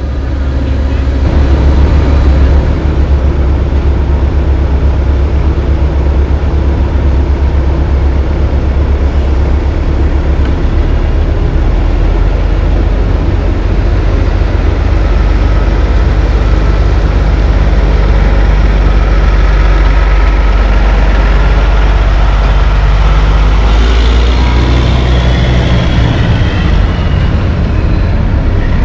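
Heavy-duty diesel dump truck engine running, a deep steady rumble. About three-quarters of the way through, the sound shifts and a higher whine comes in as the engine picks up.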